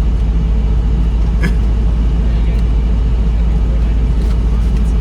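Steady low rumble of a car, heard from inside, with a faint click about a second and a half in.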